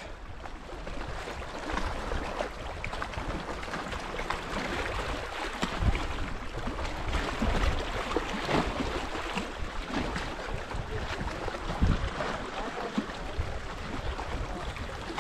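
Small waves lapping and washing against a rocky shoreline, with wind buffeting the microphone in a few brief low gusts.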